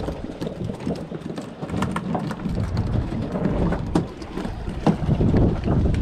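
Wind buffeting the microphone over a low rumble on a small fishing boat, with irregular knocks and taps scattered throughout.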